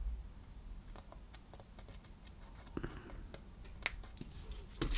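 Faint, scattered small clicks and taps from hands handling a laptop motherboard and a flux syringe on a silicone mat, the sharpest click a little before the end.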